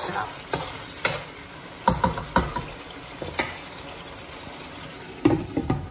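Thick brinjal curry gravy bubbling in a wok, with a metal spoon knocking and scraping against the pan now and then.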